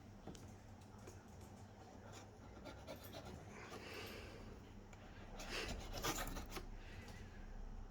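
Faint rubbing and rustling from handling the packaging and parts of a Fluval 407 canister filter, with a few louder scrapes about five and a half to six and a half seconds in.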